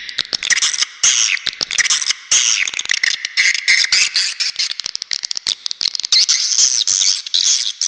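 Edible-nest swiftlets calling: a dense, unbroken stream of rapid chirps and clicking rattles. This is a swiftlet lure call track of the kind played to draw swiftlets into a nesting house.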